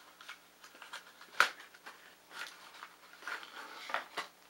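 Plastic packaging crinkling and rustling as it is handled, with scattered small clicks and one sharp tap about a second and a half in.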